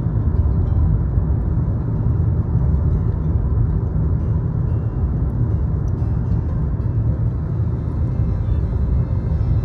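Steady road and engine rumble inside a moving car's cabin, deep and unbroken.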